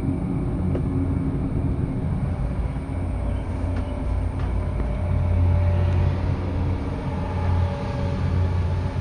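Steady low mechanical rumble and hum of a cableway gondola cabin travelling along its cable, with a few faint clicks about halfway through.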